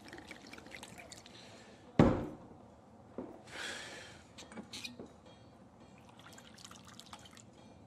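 Gin and cordial being poured into a glass at a bar, with small drips and clinks of glass. A single sharp knock comes about two seconds in, and a brief pouring hiss a second and a half later.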